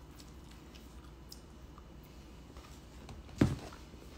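Faint mouth sounds of a person chewing food, with small scattered ticks, then a single dull thump about three and a half seconds in.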